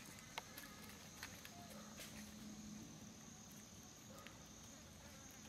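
Faint forest ambience: a steady high-pitched insect drone, with a few soft clicks in the first two seconds.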